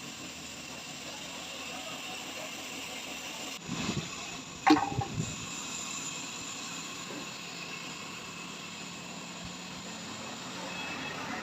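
Steady background hiss, with a brief clatter about four seconds in and a single sharp knock a moment later, the loudest sound.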